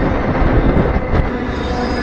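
Moving freight train: a loud steady rumble and rattle of the cars running on the rails, with a steady hum under it and a few short clicks about a second in.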